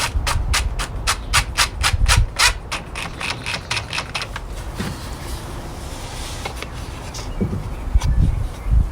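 Ratcheting hand tool clicking steadily, about four clicks a second, while a panel screw is driven. The clicking stops about four seconds in, leaving light rubbing and handling noise with a few low knocks near the end.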